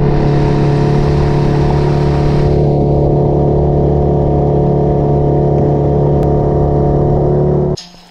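Outboard motor driving a small boat at speed, running at a steady pitch, with the hiss of water and wind rushing past, strongest in the first couple of seconds. The sound cuts off abruptly near the end.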